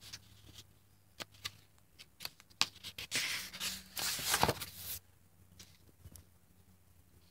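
Painted, collaged pages of a spiral-bound art journal being turned by hand. A few light ticks and taps come first, then about three seconds in a paper rustle and slide lasts about two seconds, loudest near its end.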